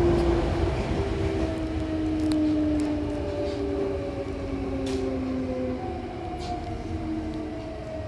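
Hankyu Kyoto Line electric train braking into a station, heard from inside the car: its traction motors whine in several tones that fall slowly in pitch as it slows, over a steady rumble of wheels on rail, with a few sharp clicks.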